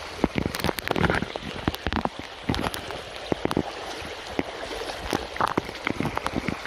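Shallow brook running fast over a stony bed: a steady rush of water broken by many small, irregular splashes and plops.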